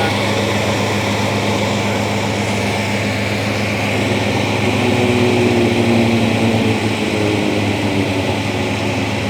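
Combine harvester's diesel engine running steadily with a deep, even hum, swelling slightly about halfway through as a faint whine comes in over it.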